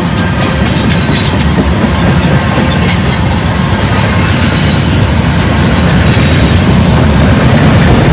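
Manifest freight train rolling past at close range: a loud, steady run of wheels on rail with clattering over the joints, growing slightly louder near the end.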